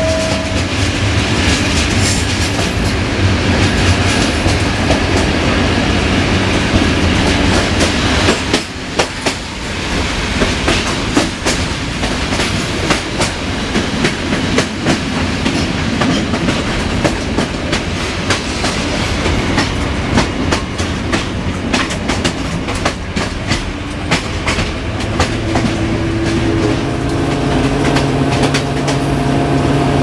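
Passenger train running at speed: the wheels clatter over rail joints in a fast, irregular clickety-clack over a steady rumble. A steady humming drone joins in near the end.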